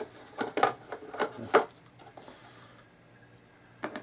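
Hard plastic parts of a new coffeemaker being handled: a quick run of clicks and knocks in the first second and a half, the loudest near its end, then one more knock near the end.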